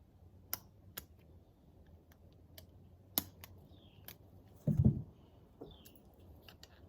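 Scattered sharp clicks of small metal parts being handled while a piston's wrist pin retaining clips are worked into place, with a short, dull thump about five seconds in, the loudest sound.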